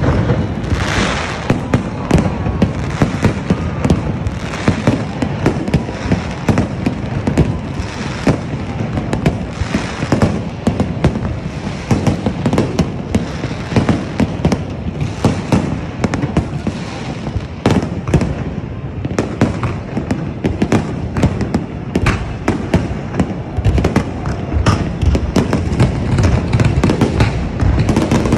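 Aerial fireworks display: a dense, continuous barrage of sharp shell bursts, many a second, over a steady crackle.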